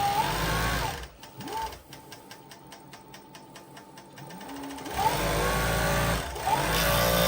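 Juki MF7523U cover stitch machine sewing under pedal control. Its motor pitch rises as it speeds up for about a second, then it runs slowly with distinct, evenly spaced stitch ticks. From about five seconds in it speeds up again and runs fast until it stops near the end.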